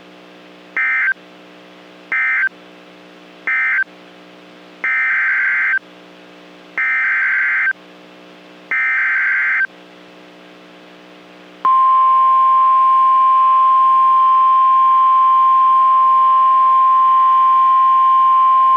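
NOAA Weather Radio EAS data bursts: three short screeching end-of-message bursts, then three longer SAME header bursts about two seconds apart, over a low steady hum. About twelve seconds in, the steady 1050 Hz weather-radio warning alarm tone starts and holds. Together these close one warning and open the next.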